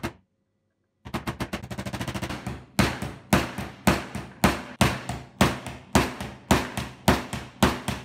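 A screwdriver worked on the screws of an old hand saw's handle: a fast run of sharp metallic clicks, then louder, evenly spaced clicks about twice a second, each ringing briefly.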